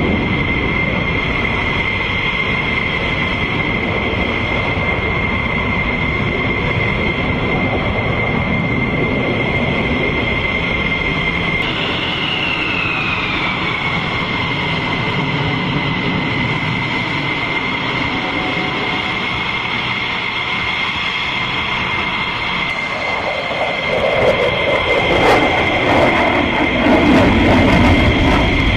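F-22 Raptor's twin afterburning turbofan engines heard from the ground during aerobatic flight: steady, loud jet noise with a high whine that falls in pitch about halfway through. Near the end the noise grows louder and crackles.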